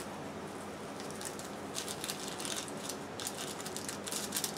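Small paper sweetener packets being handled and torn open, a series of soft papery crinkles and rustles starting about a second in.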